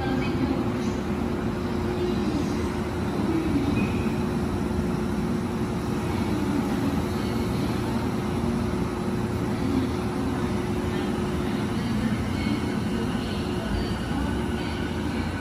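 JR East E233-series electric commuter train standing at the platform with a steady hum, then pulling away about twelve seconds in, its electric drive and wheels running as it moves off.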